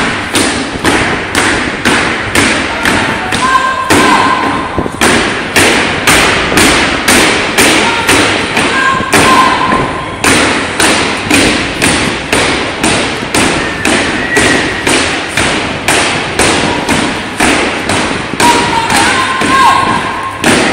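A marching flag-escort squad stamping in step on a gym floor: heavy footfalls in an even beat of about two a second.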